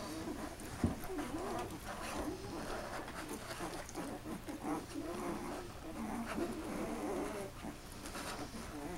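Ten-day-old Weimaraner puppies whimpering and squeaking, many short wavering calls overlapping one another. A single sharp knock about a second in.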